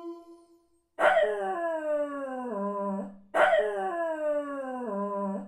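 Dog howling. A held howl ends right at the start, and after a short pause come two long howls, about a second in and again just past three seconds. Each starts high and slides down to a low, wavering note.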